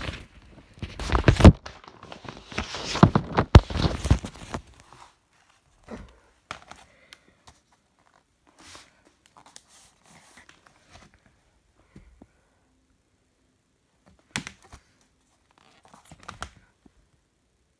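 Paper sleeves and packaging rustling and scraping as a vinyl LP is handled and slid from its paper inner sleeve. It opens with a few seconds of loud rustling and clicks, then turns into sparse soft rustles and small clicks, with one sharp knock about two-thirds of the way through.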